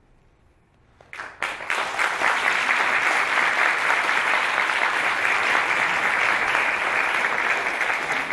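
About a second of near silence, then a large audience breaks into applause, building quickly and holding steady and loud.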